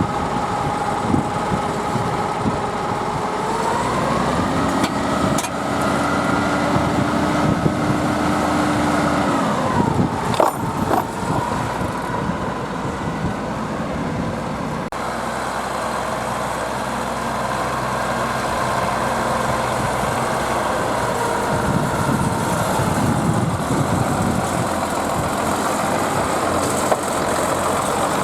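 Zetor Crystal 12145 tractor's six-cylinder diesel engine running under load while pulling a five-furrow plough. Its note rises about four seconds in and drops back about ten seconds in, where a few knocks come, then runs steady.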